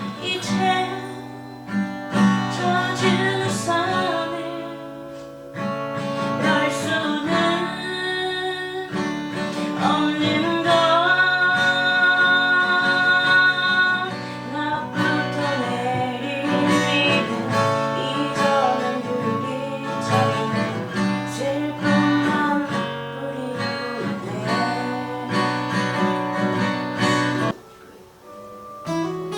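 Acoustic guitar played with strummed chords, a voice singing along. The playing dips briefly near the end before picking up again.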